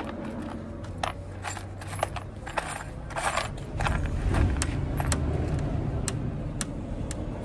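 Light metallic clicks and rattles of hands working speaker wires and small metal parts at a car door's speaker opening, over a steady low rumble.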